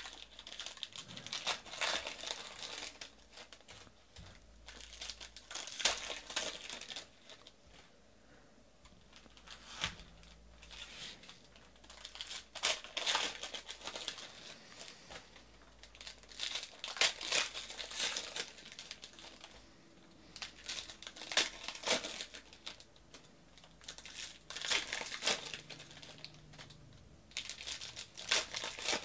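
Foil wrappers of 2018-19 Panini Prizm basketball card packs crinkling and tearing as they are opened by hand. The crackly bursts come in short clusters every few seconds.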